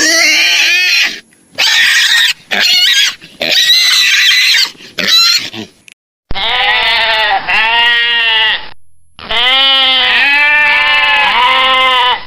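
A pig squealing in about five short, harsh bursts, then, after a cut at about six seconds, a goat or sheep bleating in a run of long, wavering calls.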